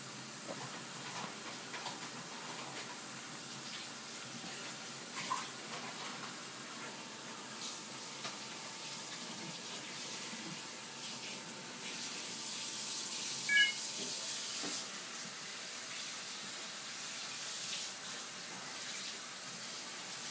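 Steady low hiss of room and microphone background noise, with a few faint clicks and one brief high chirp about two-thirds of the way through.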